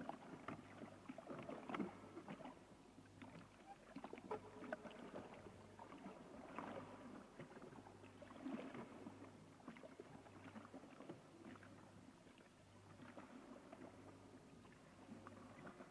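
Near silence: faint scattered clicks and rustles over a low hum that pulses on and off.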